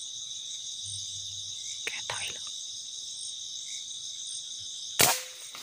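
Crickets and other night insects chirping steadily. About five seconds in, a single sharp crack of an air rifle shot cuts across them.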